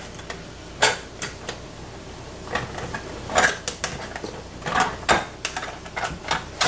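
A metal food can clinking and knocking against kitchenware in irregular taps and short rattles, as its stuck contents are worked loose while it is drained.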